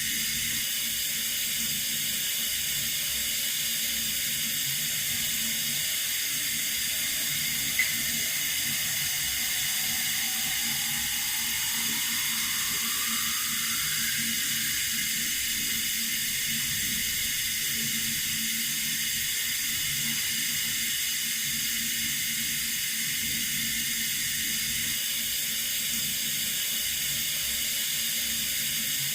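Water running steadily from a tap, a constant even hiss. A brief click about eight seconds in.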